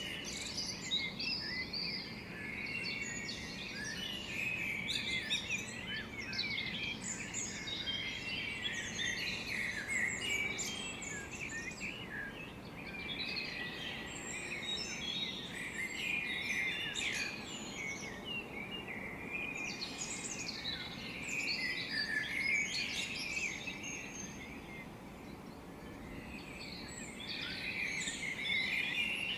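Blackbirds at dawn: many birds calling and chattering at once, their calls overlapping without pause, over a faint steady background noise.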